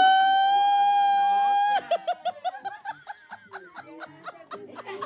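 A person's long, high, steady shriek of excitement that breaks off suddenly a couple of seconds in, followed by quick high-pitched laughter that fades.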